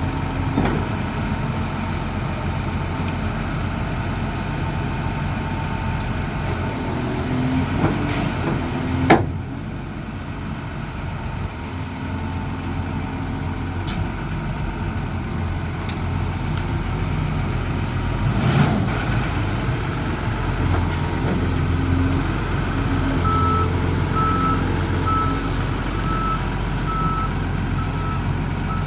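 Backhoe loader's diesel engine running steadily, with a sharp knock about nine seconds in and another just past the middle. Later its reversing alarm sounds a regular series of beeps, the machine backing up.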